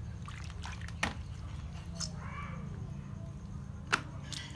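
A baby monkey being washed by hand in a plastic basin of water, with light water sounds and two sharp taps, one about a second in and a louder one near the end. A short, high call a little past the middle is most likely the monkey squeaking.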